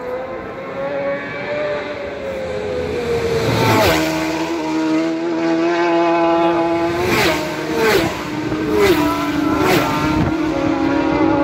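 Racing motorcycles passing at high speed one after another, each engine's pitch dropping sharply as it goes by: about four seconds in, then again around seven, nine and ten seconds.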